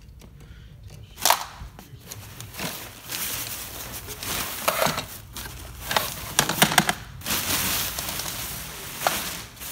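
Handling noise from an inflatable's plastic base fan and its power cord being sorted out: irregular clicks and knocks with rustling in between.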